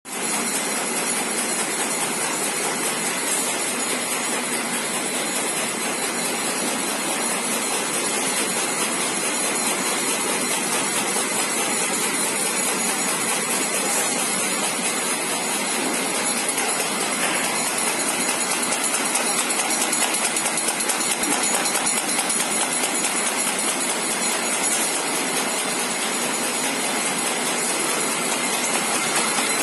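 Envelope folder gluer running, its belts and rollers carrying paper blanks through with a steady, even mechanical din.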